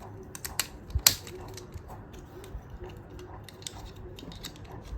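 Plastic Rubik's cube pieces clicking as they are handled and pressed into place, with the sharpest snap about a second in.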